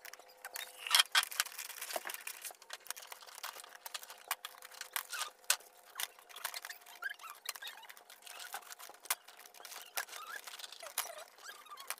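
Dried sea cucumbers clicking and knocking lightly against each other and the styrofoam box as they are packed in by hand, with paper lining rustling: many quick, irregular clicks.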